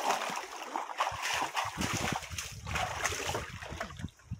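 Splashing and sloshing in shallow water and mud, with irregular low thuds, as people step from a canoe and wade onto the mangrove mud.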